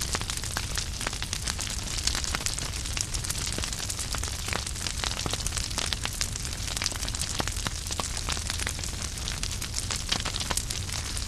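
Wood fire burning in a fireplace: firewood crackling with many irregular sharp pops over a steady rush of flame and a low rumble.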